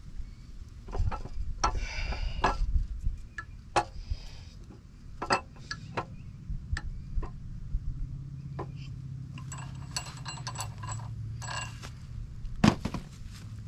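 Camshaft being slid by hand into a GM LQ4 V8 block, its lobes and journals clinking, knocking and scraping against the cam bearings in irregular taps. A sharp knock near the end is the loudest, and a low steady hum runs underneath from about halfway.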